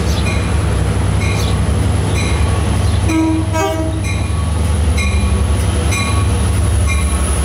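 Long Island Rail Road DM30AC diesel locomotive arriving at a station, its diesel engine rumbling steadily while its bell rings about once a second. About three seconds in it sounds a short horn blast lasting about a second.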